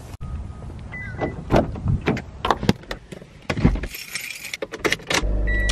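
Car keys jangling, with a run of sharp clicks and knocks as a car is unlocked and got into, and a short high chirp about a second in. Music comes in near the end.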